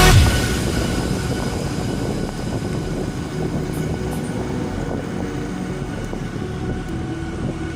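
Steady road and traffic noise heard while cycling along a busy street, a continuous low rumble with no distinct events.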